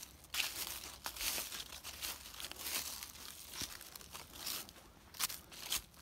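Footsteps crunching and rustling through dry fallen autumn leaves, in uneven bursts.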